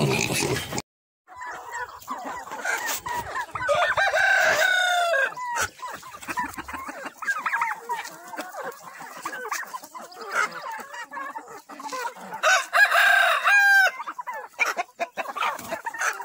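Backyard chickens clucking, with a rooster crowing twice, about four seconds in and again near the end.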